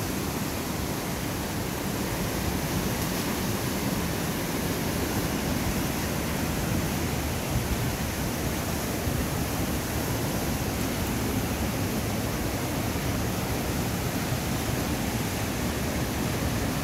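Steady rushing of a swollen, fast-flowing river.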